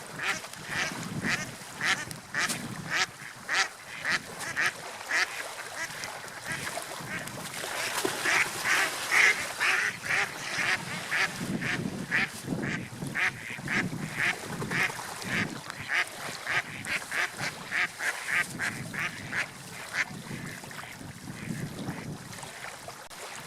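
A flock of waterfowl calling: many short, repeated calls, two or three a second, overlapping.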